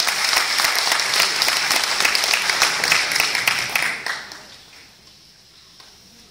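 Audience applauding, the clapping dying away about four seconds in to a quiet hall.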